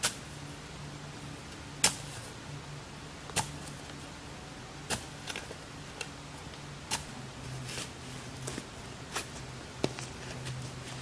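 Spade strikes chopping into sandy soil and sod, sharp and separate, one every second or two, over a steady low hum.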